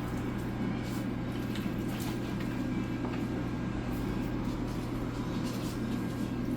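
Knife slicing raw chicken breast on a cutting board, a few faint irregular taps, over a steady low hum.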